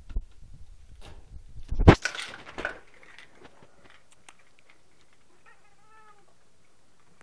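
A domestic tabby cat meows once, a short faint call that rises and falls in pitch, a little after halfway through. Earlier, about two seconds in, there is a loud thump followed by a brief rustle.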